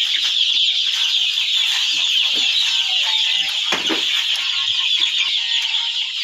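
A large flock of chickens calling all at once, a dense, steady chorus of overlapping high-pitched calls with scattered lower clucks.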